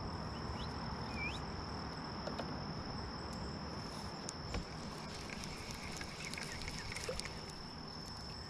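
A steady high-pitched insect drone over low outdoor background noise, with a couple of short rising chirps about a second in and scattered faint clicks later on.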